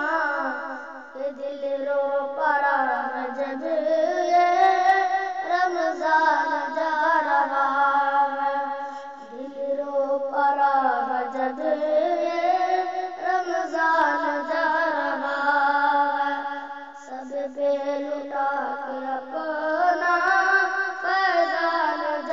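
A boy singing a devotional Urdu kalam bidding farewell to Ramzan, holding long wavering notes in drawn-out phrases with brief pauses between them.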